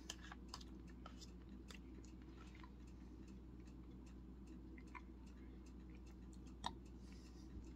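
Near silence with a low steady hum, broken by faint scattered clicks of a spoon in a cup of cottage cheese and quiet chewing; one click near the end is a little louder.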